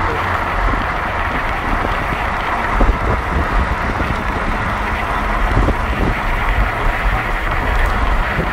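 Steady road and wind noise from cars travelling at highway speed, with a low rumble of engines and tyres.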